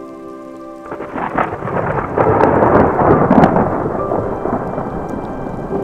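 Thunder rolling over rain. It swells about a second in, crackles at its loudest, then slowly fades.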